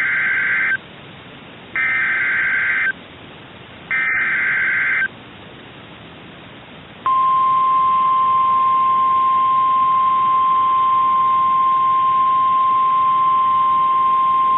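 Emergency alert signal from NOAA Weather Radio. Three buzzing bursts of SAME digital header data, each about a second long and about two seconds apart, are followed about seven seconds in by the steady 1050 Hz warning alarm tone. Together they mark the start of a new warning broadcast.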